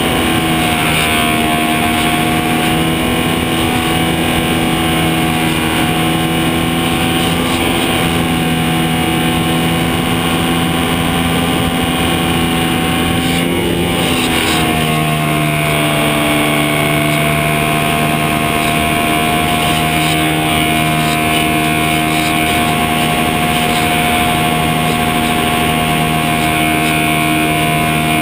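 Electric motor and propeller of a HobbyZone Super Cub model airplane running steadily in flight, heard from a camera mounted under the plane, a loud, even whine whose pitch shifts slightly lower about halfway through.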